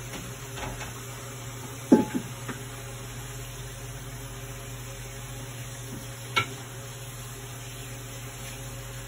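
Covered stainless steel stockpot of beef stock boiling on a gas burner: a steady hiss with a low hum. A sharp metallic clank of cookware comes about two seconds in, followed by a couple of lighter knocks, and there is a single sharp click a little after six seconds.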